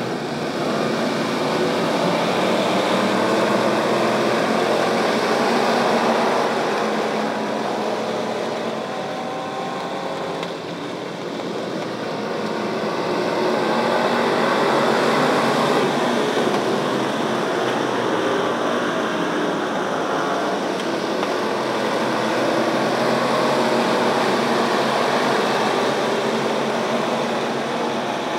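A pack of pure stock dirt-track race cars running around the oval, the combined engine noise swelling and easing three times as the field comes by.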